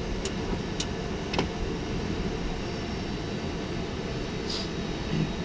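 Steady low rumble and hiss of a Boeing 747's cockpit during taxi, from the engines and the cockpit airflow, with a few light clicks in the first second and a half.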